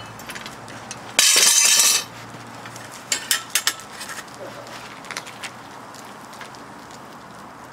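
Steel lifting tongs and a pouring shank clinking and clanking against a crucible of molten cast iron as it is lifted and handled, with a sharp cluster of clinks about three seconds in. A loud, even burst of hissing noise lasts about a second, just after the start.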